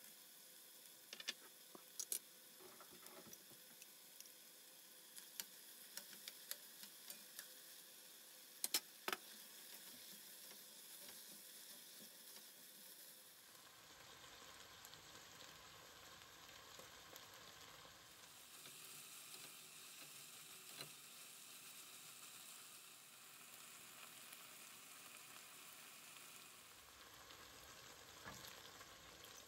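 Faint sizzling of diced meat and vegetables frying in a pot, with a run of sharp clicks in the first ten seconds. Near the end, water begins to be poured into the pot.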